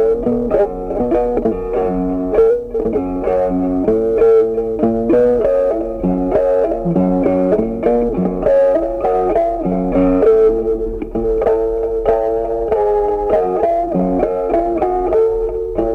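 Khse diev, the Cambodian single-string gourd-resonated zither, played in a melody of quick plucked notes over a steady held pitch.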